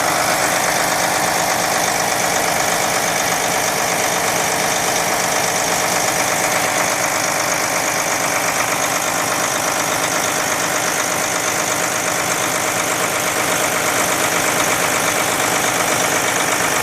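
Prevost X3-45 coach's diesel engine idling steadily, an even running sound with no revving.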